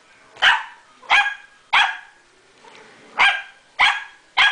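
Pomeranian puppy barking: short barks, three in quick succession, a pause of about a second and a half, then three more.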